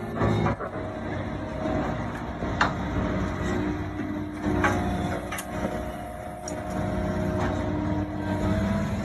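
Heavy machine's engine running steadily, with several sharp metal clanks and knocks.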